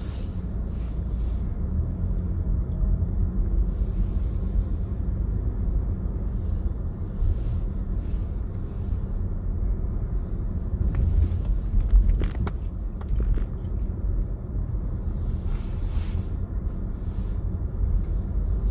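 Car cabin noise while driving: a steady low rumble of engine and tyres, with a few faint clicks and rattles.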